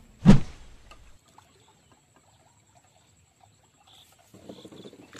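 A single loud thump from a subscribe-button animation sound effect just after the start. Then faint outdoor background, with a few faint high chirps around four seconds in.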